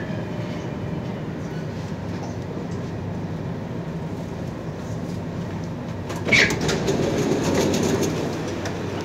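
C751C metro train humming steadily while stopped at the platform. About six seconds in, a sudden burst of noise comes as the doors open, followed by louder noise for about two seconds as passengers move.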